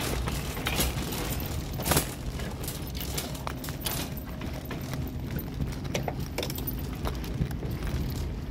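A metal shopping cart loaded with groceries being pushed along, its wheels rumbling and the basket rattling and clinking, with a sharper knock about two seconds in.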